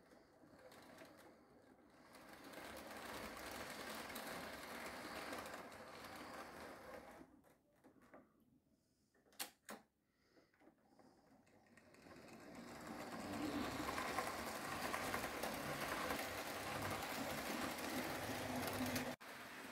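Fleischmann model trains running on track: a steady mechanical whirr of small electric motors and wheels on the rails. It fades low about halfway through, with two sharp clicks, then builds up again and cuts off suddenly near the end.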